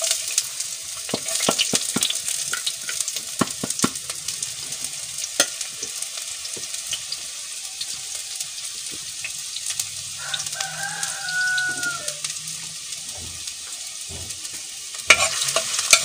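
Chopped onion sizzling and crackling as it fries in hot oil in a glazed clay pot, with a spoon stirring and scraping it near the end, which is louder. A rooster crows in the background about ten seconds in.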